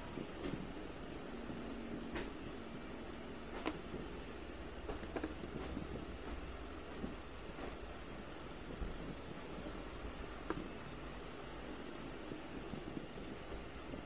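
Insect chirping: a high, even pulse about five times a second that pauses briefly a few times. A few light clicks and taps come from fan wires being pushed into a plastic capacitor holder.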